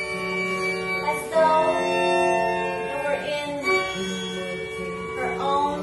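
Music: long held notes over a low tone that comes and goes in segments, with a few brief sliding pitches.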